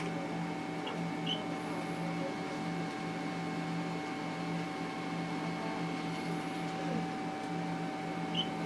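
Steady electrical hum made of several constant tones over a faint hiss, with no changes or sudden sounds.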